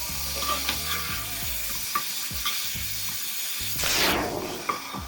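Chicken frying in oil in a pan, sizzling steadily, with the clicks and scrapes of a utensil stirring it. About four seconds in, a louder hiss swells briefly and fades.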